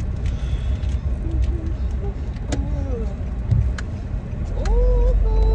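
Low rumble inside a car cabin with a few scattered clicks. Near the end a voice holds a short hummed note, rising at first and then steady.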